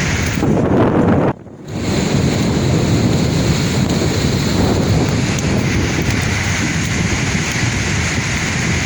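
Sea waves washing in continuously, with wind rumbling on the microphone. The sound drops out briefly about a second and a half in, then carries on.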